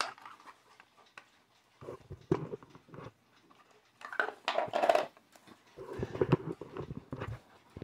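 Handling noise from a Cardinal Quartz folding travel alarm clock: its plastic clock body clicks and scrapes against the case as it is pushed and folded into place and set down on a wooden floor. It comes in three bouts of clicking and rubbing, about two seconds apart.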